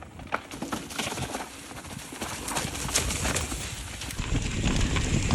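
Mountain bike rattling and knocking over rocks on a rough descent: irregular clacks from the tyres, chain and frame over a rumble of tyre and wind noise that grows louder toward the end.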